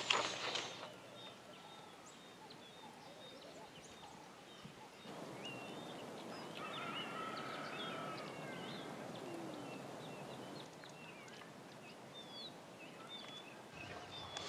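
Small birds chirping here and there over a faint steady hiss, with a longer wavering call about halfway through. Music fades out in the first second.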